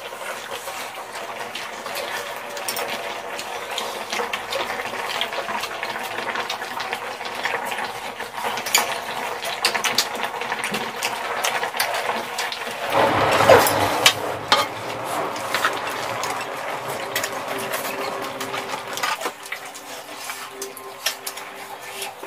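Eating at the table: chopsticks and spoons click and scrape against a pan of tteokbokki and small dishes, over a steady liquid bubbling of the stew. About thirteen seconds in there is a louder stretch of noise.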